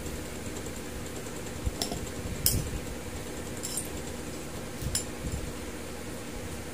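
Light clinks of a plate and utensils being handled, four short ones scattered over a few seconds, over a steady low hum.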